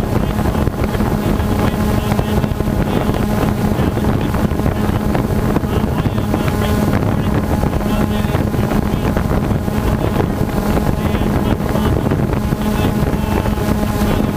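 Quadcopter drone hovering overhead, its propellers and motors giving a loud, steady buzzing hum.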